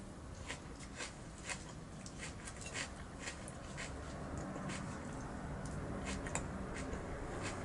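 Close-up eating sounds: chewing with frequent short, irregular wet mouth clicks and smacks.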